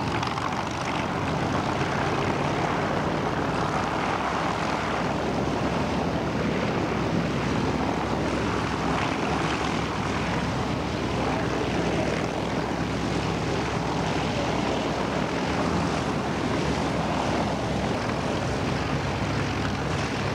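Hawker Sea Fury's radial engine and propeller running steadily on the ground, the engine note holding even throughout.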